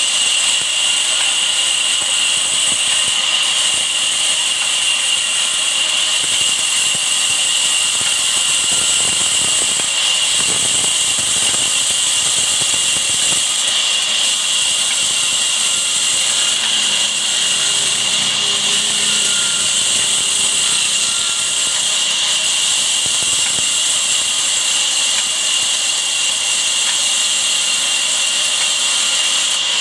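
Large vertical band saw ripping a timber beam lengthwise: the blade runs through the wood with a steady, unbroken high-pitched whine and hiss.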